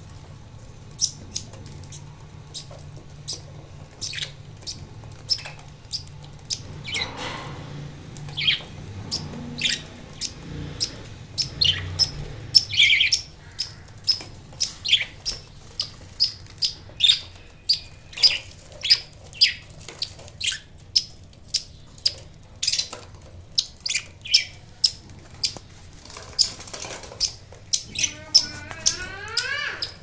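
Budgerigars chirping: many short, sharp high chirps, one after another, growing busier about a third of the way in. Near the end comes a longer, wavering call. A low hum sits underneath through roughly the first half.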